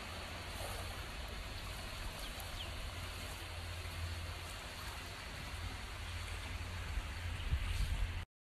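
Outdoor seaside ambience picked up by a phone microphone: a steady hiss with wind rumbling on the mic, and a few heavier gusts near the end.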